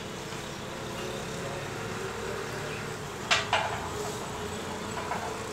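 Two sharp knocks in quick succession about three and a half seconds in, as the base of a mobile X-ray stand is handled during assembly, over a steady buzzing hum.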